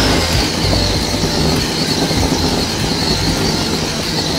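WPL D42 RC drift van's electric motor and gearbox whining as the van drives across a hard floor, the high whine dipping slightly and then holding a steady pitch.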